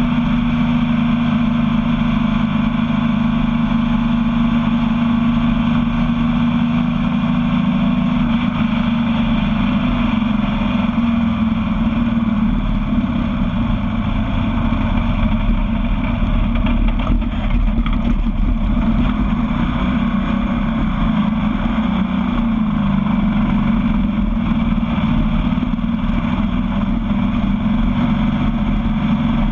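Sandrail's engine running steadily at a cruise, picked up by a camera mounted on the buggy itself, with a constant rush of noise beneath it. The engine note wavers and dips slightly a little past the middle.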